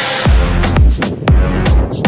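Electronic dance music with a heavy kick drum about twice a second and sharp snare or hi-hat hits.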